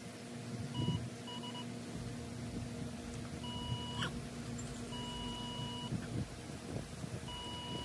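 Electronic beeps at one steady pitch, each held for a different length: two short ones about a second in, then three longer ones a second or two apart. A steady low hum runs underneath.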